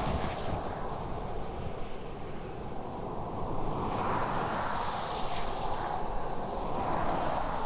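Roadside ambience: a steady chirring of insects, with vehicles passing on a highway, swelling and fading about four and again about seven seconds in.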